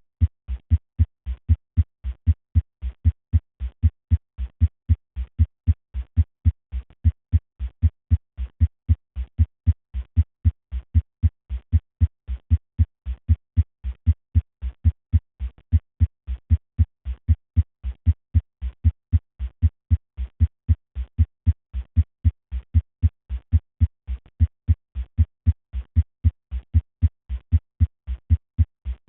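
Recorded heart sounds, as heard through a stethoscope: a steady, regular heartbeat of short, low thuds repeating evenly.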